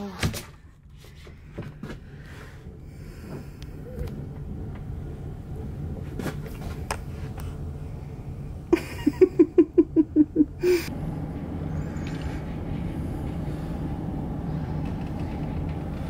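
Storm-force wind blowing against the cabin, heard from indoors as a steady low rumble, a little stronger after a click about eleven seconds in. A sharp click just after the start is the cabin door shutting. A little past halfway there is a short run of about eight quick pitched pulses lasting about two seconds.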